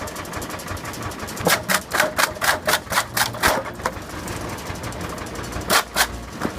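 Wood chipper running with a low steady hum, broken by a rapid run of sharp clacks, about four a second, for a couple of seconds, then two more clacks near the end.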